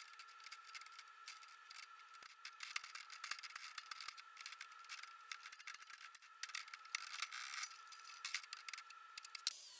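Small objects clattering and scraping as they are handled, many light clicks over a faint steady high tone. Near the end, a louder continuous rasping noise starts.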